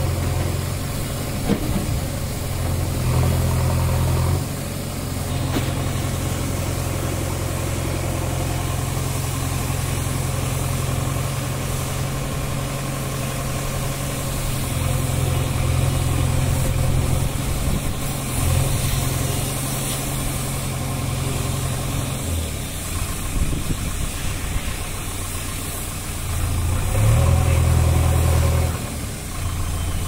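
JCB 3DX backhoe loader's diesel engine running steadily as the machine manoeuvres, briefly getting louder about three seconds in and revving up in pitch and level near the end.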